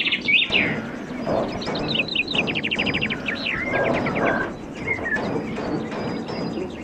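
Birds chirping and calling, with quick high notes and a fast trill of repeated chirps a couple of seconds in.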